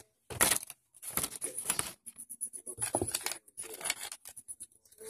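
Packaging of a pack of foam blaster darts being torn open by hand: four rough tearing, crinkling spells with short pauses between them.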